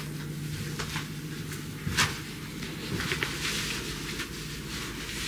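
Getting dressed: a belt and a loose shirt being handled and put on, with one sharp click about two seconds in, a few lighter clicks a second later, and fabric rustling after.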